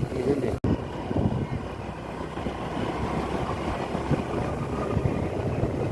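A vehicle on the move, a steady rumble of engine and road noise with wind buffeting the microphone, broken by a brief dropout about half a second in.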